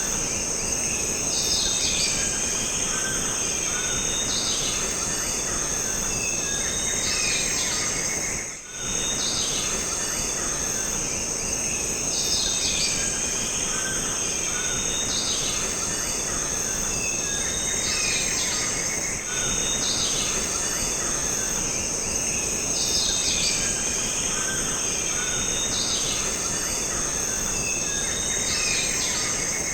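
Jungle ambience: a steady high-pitched insect drone with bird calls repeating every few seconds over it.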